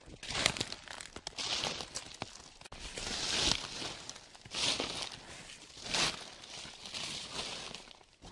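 Footsteps crunching through a thick layer of dry fallen leaves, one slow step about every second.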